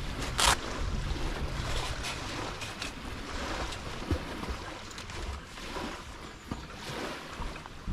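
Wind rumbling on the microphone over a steady outdoor hiss, with a sharp click about half a second in and a few faint light knocks after it.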